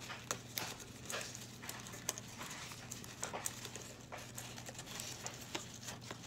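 Cardstock and paper handling: irregular soft clicks, taps and rustles as small paper embellishments are pressed into the compartments of a cardstock box, over a faint steady low hum.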